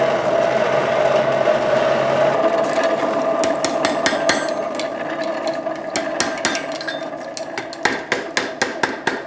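A steady hum, then hammer blows on hot iron at the anvil starting about three and a half seconds in, scattered at first and settling into a quick regular beat near the end: a chain link being shaped over the anvil horn after forge welding.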